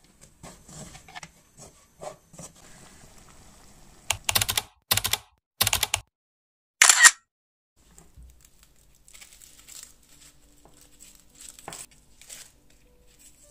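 Soft clicks and scrapes of a metal spoon tipping ground walnuts into a pan, then four loud hissing bursts between about four and seven seconds in. From about eight seconds in, faint scraping and ticking of a knife peeling the papery skin off an onion.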